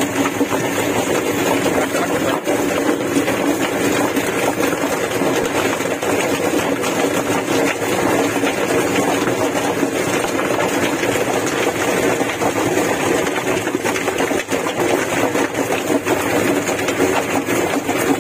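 Drum-type chicken plucker running: its motor spins the rubber-fingered base plate while a broiler tumbles against the steel drum, making a loud, steady hum with faint scattered knocks.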